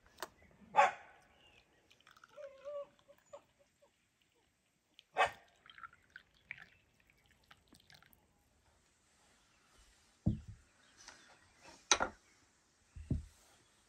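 Tea poured from a glass French press into a small glass cup, trickling and dripping, amid sharp clinks of glass and a couple of dull knocks as the pot and cups are handled and set down.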